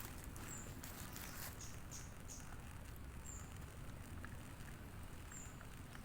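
Short, high, falling chirps of a small bird, repeating at irregular intervals over a low steady background rumble, with a few faint rustles near the start.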